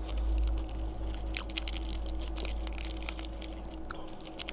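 Plastic wrapper of an individually wrapped crispy oat snack crinkling and tearing as it is pulled open by hand, with many irregular sharp crackles.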